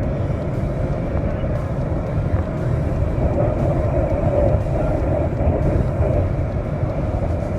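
Steady rushing roar of Niagara Falls, an even, unbroken noise heavy in the low end.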